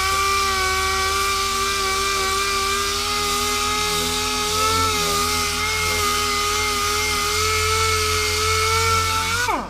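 Handheld electric power tool, such as those used in body repair, running at steady full speed with a high motor whine. It winds down with a falling pitch near the end.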